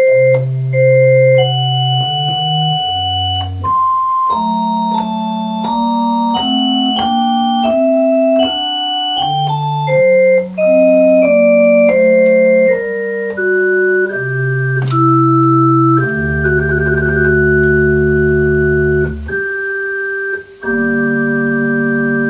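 A two-manual electronic organ playing a contrapuntal piece: a moving upper line over held chords. From about two-thirds of the way through there is a deep pedal note under a trill. After a brief break near the end, a full chord is held.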